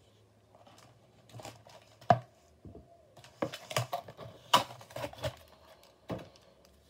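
Toy packaging being opened by hand: scattered crinkling, tearing and small knocks, with a sharp knock about two seconds in and a busier run of rustling through the middle.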